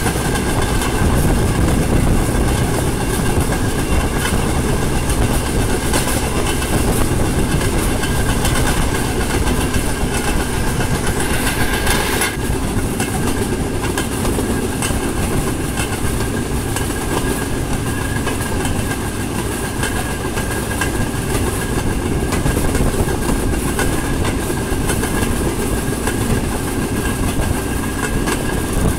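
A narrow-gauge rail vehicle rolling steadily along the track: a continuous rumble of wheels on rails with scattered clicks at the rail joints and a steady high whine running through it.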